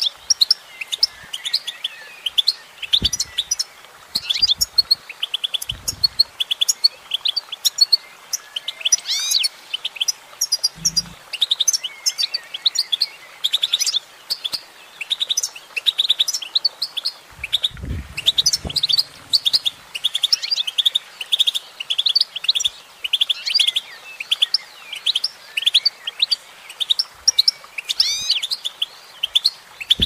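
Goldfinch singing: a fast, unbroken stream of high twittering chirps and trills, with a few faint low thumps.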